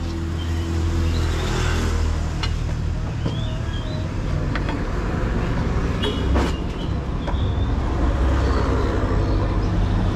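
Road traffic going by: the steady hum of passing vehicle engines, with a few light clicks.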